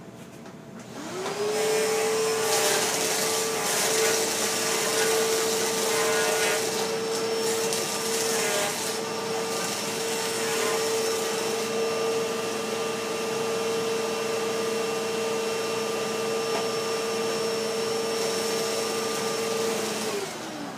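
Hoover vacuum cleaner switched on about a second in, its motor spinning up to a steady high whine. It runs with scattered rattles over the first several seconds, then winds down as it is switched off near the end.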